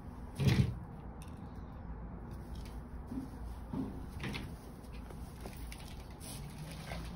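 A single dull thump about half a second in, followed by a few faint short scuffs.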